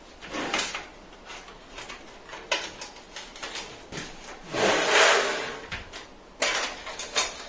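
Power-supply cables and connectors being handled inside a PC case: cable rustling and short plastic clicks. About halfway through comes a longer, louder scraping as the case is turned on the floor.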